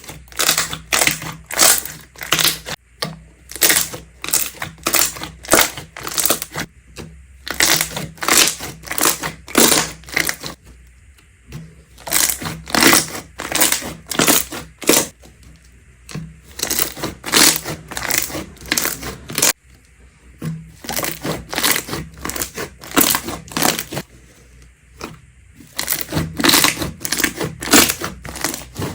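Slime being pressed and squeezed, giving runs of rapid crackling, crunching clicks with short pauses between them.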